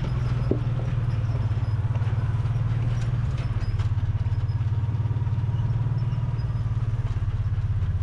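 A vehicle's engine running steadily at a low pitch, dropping slightly about three seconds in.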